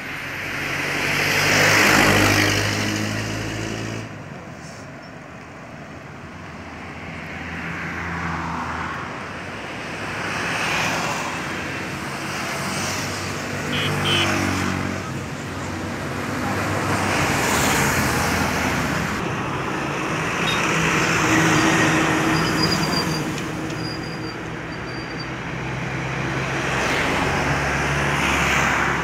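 Road traffic: vehicles passing one after another, each swelling and fading over a couple of seconds, every few seconds.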